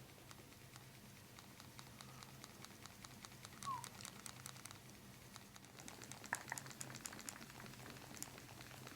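Faint crinkling and many scattered light ticks of the paper cover on a chiropractic treatment table, a little busier after about six seconds, over a low steady hum.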